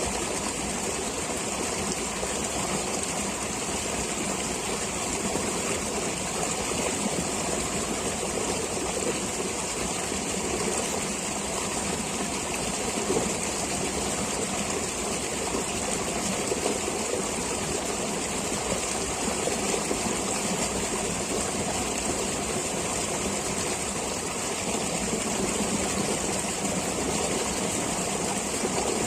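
Stream water flowing and splashing steadily, an even rushing with no pause or change.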